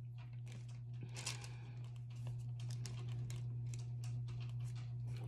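Thin Bible pages rustling and crinkling under the fingers as they are leafed through and smoothed down, a string of faint irregular soft clicks, with a steady low hum underneath.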